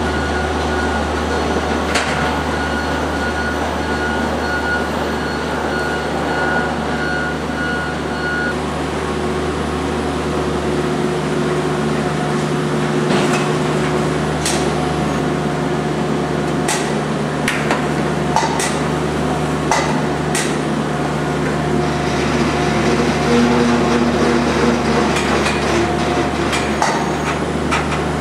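Crate stacking and destacking line running: a steady machine hum with irregular clacks and knocks as crates are shifted off the growing table, the knocks coming more often in the second half.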